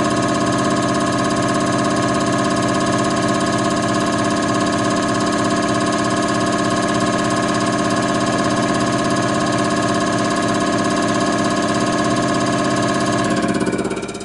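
XNS300 common rail injector test bench running a full-load injection test at 160 MPa rail pressure: a loud, steady machine hum with several held tones. Near the end the sound drops off sharply as the test step finishes and the bench reduces pressure.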